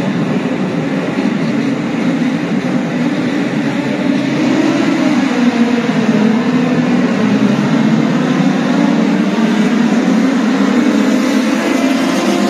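Engines of classic race cars running on the track, a loud steady drone that rises and falls slightly in pitch.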